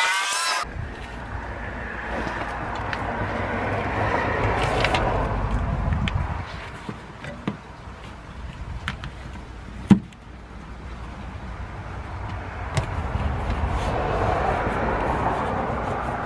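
Road traffic passing: a low rumble that swells up and fades twice, with one sharp click about ten seconds in.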